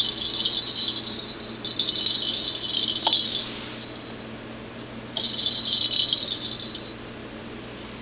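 Plastic cat jingle ball with a bell inside rattling as a cat bats it and it rolls across carpet: three bouts of jingling, the first already going and stopping about a second in, the second around two to three and a half seconds, the last around five to seven seconds.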